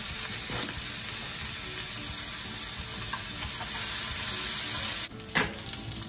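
Yakisoba noodles and sausage sizzling in a frying pan while being stirred, a steady frying hiss. The sizzle drops off suddenly about five seconds in, followed by a sharp knock; another short knock comes early on.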